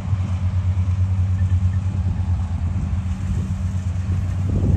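Engine of rice-harvest machinery running steadily at a constant speed, an even low hum.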